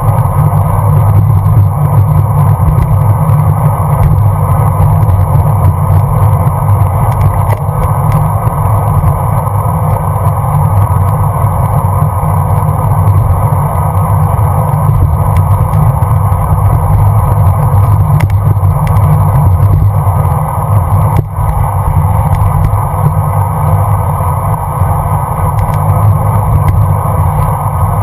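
Steady wind rush and road noise on a cyclist's GoPro microphone while riding, heaviest in a low rumble.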